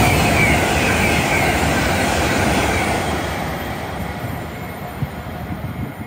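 A GWR Intercity Express Train (Class 800 family) passing at speed, with a loud rush of wheel and rail noise that fades steadily as it draws away. A high whine drops in pitch over the first couple of seconds.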